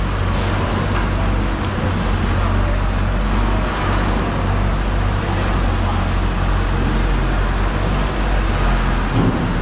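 A steady low motor hum under a constant rush of background noise.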